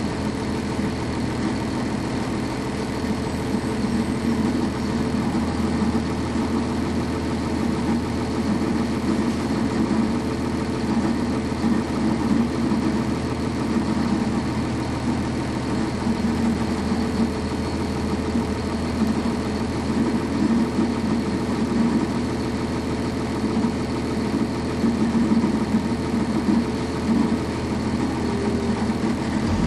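Cummins ISC straight-six diesel engine of a 1999 NovaBus RTS transit bus running at a steady, unchanging pitch, heard from on board the bus.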